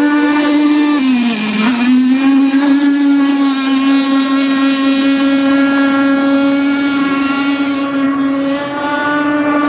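O.S. Max 50SX Hyper two-stroke glow (nitro) engine in a Seaducer mono-hull RC boat running at speed on the water: one steady buzzing engine note. About a second in, its pitch sags briefly and then comes back up.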